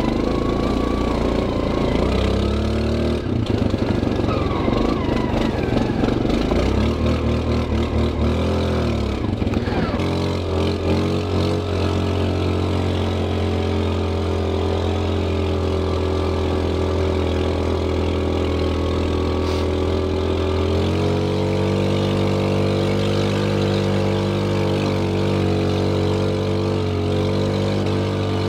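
Linhai 400S Dragonfly ATV engine under way. For the first ten seconds or so the revs rise and fall unevenly, then it settles to a steady speed, with a small step up in pitch about two-thirds of the way through.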